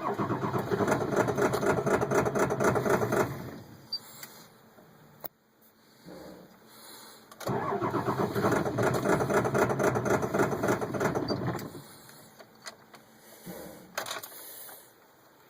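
Ford 7.3 Power Stroke V8 diesel cranking on the starter in two attempts of about three to four seconds each, with a fast even chug, and not catching either time. It is a cold hard start with the block heater not plugged in, despite fuel pressure above 50 and injection control pressure over 2,000 while cranking.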